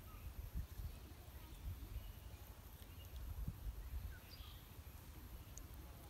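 Outdoor ambience: an uneven low wind rumble on the microphone, with a few faint, short bird chirps now and then.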